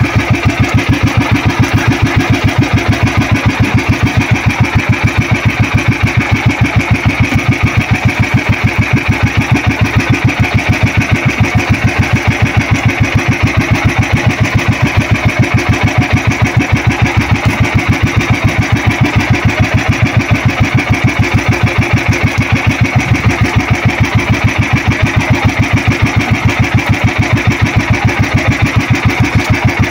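Outrigger boat's small engine running steadily, an even rapid chugging with no change in speed.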